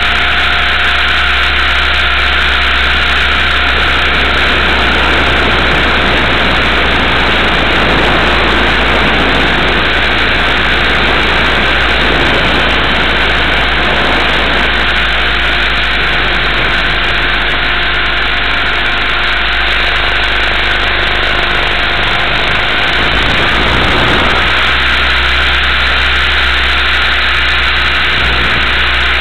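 Multiplex Funcopter RC helicopter in flight, heard through its onboard camera's microphone: a steady, loud whir and rush from the electric motor and rotor, with a low hum underneath.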